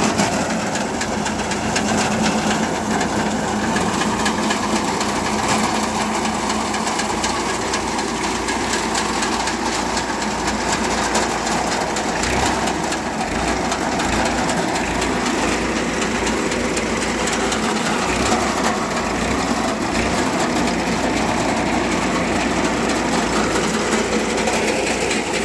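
Tractor engine running steadily under load as a tractor-mounted Sitara vertical conveyor reaper cuts standing wheat. It makes a continuous, even mechanical noise with no pauses.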